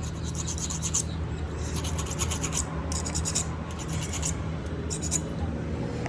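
Rapid hand rasping strokes on tyre rubber, in about five short bursts, over a steady low hum.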